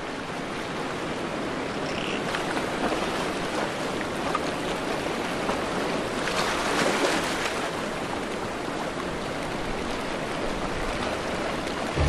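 Steady sea ambience: waves and water washing, swelling a little louder about six to seven seconds in.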